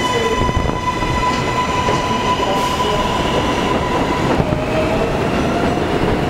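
NYC Subway train pulling out of the station: a steady high electric whine from its propulsion, with overtones, over the rumble and clatter of wheels on the rails. About four seconds in the whine stops and a lower tone takes over.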